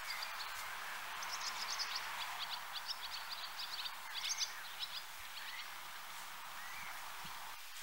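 Small birds twittering in quick runs of short high chirps for the first several seconds, over a steady background hiss.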